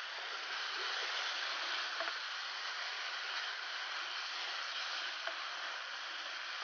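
Grated coconut and treacle sizzling in a non-stick frying pan as it is stirred with a wooden spatula, a steady hiss with a few light scrapes and taps of the spatula on the pan.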